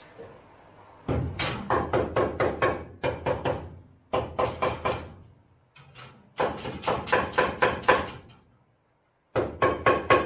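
Hammer rapidly striking the steel frame of a 1963 International Scout, four quick runs of blows at about five a second, each blow ringing. The blows are a check for rust, and the frame is found super solid.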